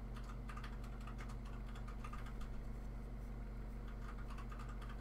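Felting needle jabbing repeatedly into wool felt and the foam mat beneath, making rapid, irregular little clicks several times a second, over a steady low electrical hum.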